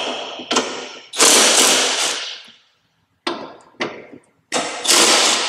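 Cordless impact wrench with a 10 mm socket loosening two fender bolts: a few short trigger bursts, then a longer run of about a second just after the start, two more short bursts, and another long run near the end.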